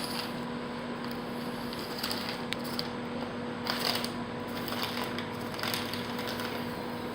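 Small RC rock crawler clambering over track obstacles: scattered light clicks and knocks of its tyres and plastic body against the track, over a steady hum.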